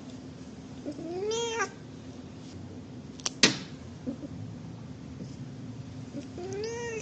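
A cat meowing twice, each a drawn-out meow rising then falling in pitch, about a second in and near the end, as its claws are being trimmed. Midway comes a sharp click, the loudest sound, from the small nail clippers snipping a claw.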